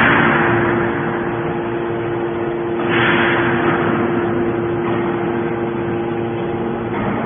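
Hydraulic metal baler running: a steady hum from its power unit, with a surge of harsher noise about three seconds in that fades over a second or so.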